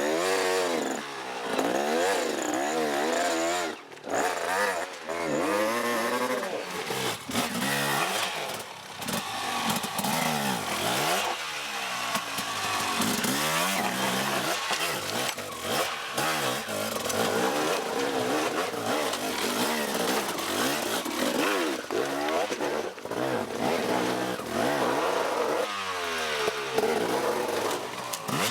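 Off-road motorcycle engines revving, their pitch rising and falling again and again as the bikes ride and pass by.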